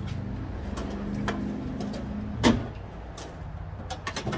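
Hand tools clanking and knocking as someone rummages through a tool chest: a few separate knocks, the loudest about two and a half seconds in and a quick cluster near the end, over a steady low hum.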